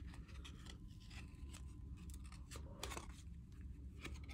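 Trading cards being handled and slid off one another as a pack is flipped through: faint, irregular soft swishes and clicks, two or three a second.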